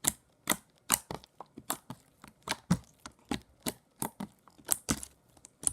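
Glossy slime being poked and squeezed, making a quick series of sharp, wet clicks and pops, about two to three a second.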